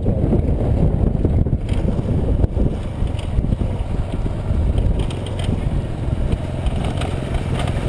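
Boda boda motorcycle taxi engine running steadily while riding a rough dirt road, heard from on the bike as a continuous low rumble mixed with wind on the microphone.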